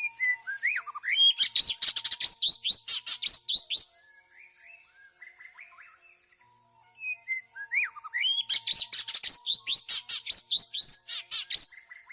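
White-rumped shama singing: two loud bouts of rapid whistled notes and trills, each lasting about four seconds, with a pause of softer notes between them. A steady high-pitched tone runs underneath.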